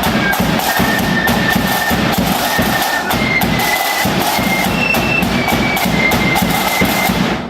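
Flute band playing: flutes carry a melody of high held notes over steady bass drum and snare beats. The music stops abruptly right at the end.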